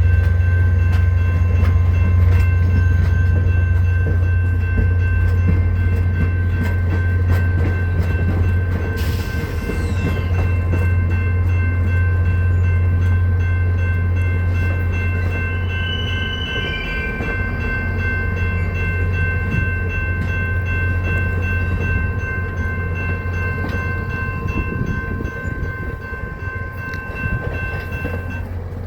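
VIA Rail passenger train led by F40PH diesel locomotive 6401 pulling out and rolling by: a loud steady diesel rumble with wheel clicks over the rail joints, and steady high-pitched ringing tones until near the end. The sound slowly fades as the train moves away.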